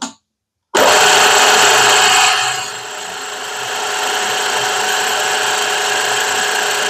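Milling machine spindle started about a second in, spinning a boring head with a boring bar set at its minimum bore, turning on center. Steady motor and drive noise with a constant whine; the level dips a little after two seconds in, then runs steadily.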